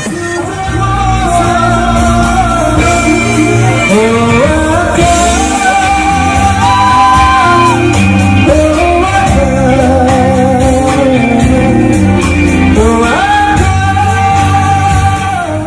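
A live band playing a song: a male singer with an acoustic guitar, drums and keyboard, loud and steady, with long held sung notes.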